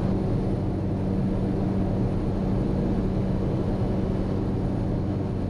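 Cessna 208B Caravan's Pratt & Whitney PT6 turboprop and propeller running at high power in flight, heard inside the cockpit as a steady low drone.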